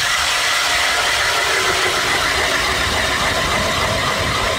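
Motorized ice auger running steadily as its spiral bit bores a fishing hole through lake ice.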